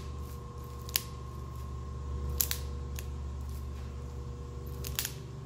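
Metal finger linkages of a hand-built mechanical hand attachment clicking as the fingers are opened and closed by wrist motion: a few sharp, irregularly spaced clicks over a steady low hum.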